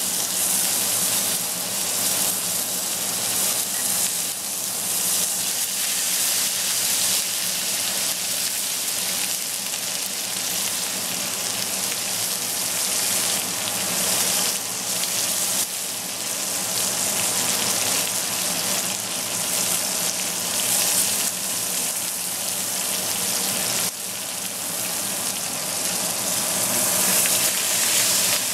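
Ribeye steak frying in melted butter in a hot cast iron skillet, sizzling steadily as it is basted.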